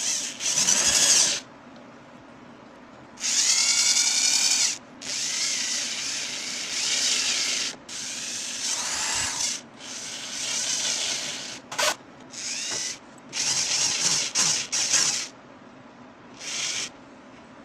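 Cordless drill driving screws through a plastic speaker grill's mounting tabs into a subwoofer cabinet. It runs in a string of short whining bursts, the motor speeding up and slowing as each screw goes in.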